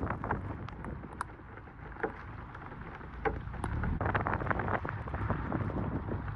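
Wind rushing over a phone microphone mounted on the outside of a moving car, with tyres hissing on the wet road and a low engine drone underneath. Scattered short ticks run through it.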